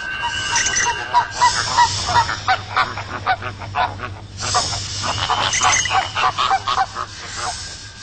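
A flock of flamingos calling: a rapid run of many short, goose-like honks, overlapping, with a brief lull about four seconds in, over a low steady hum.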